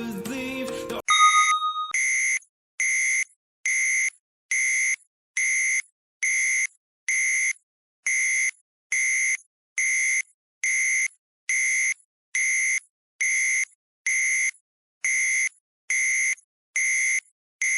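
Countdown timer alarm: a string of identical high electronic beeps, a little more than one a second, sounding steadily once the timer hits zero. Background music stops abruptly about a second in, just before the beeps begin.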